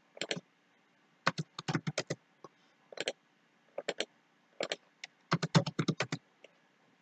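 Computer keyboard keys and mouse clicks in irregular runs, with the densest run of quick keystrokes near the end.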